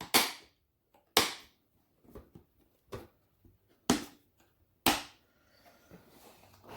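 Several sharp knocks and clicks, about one a second, from parts being handled and fitted while a three-wheeler's air intake and air filter are put back together.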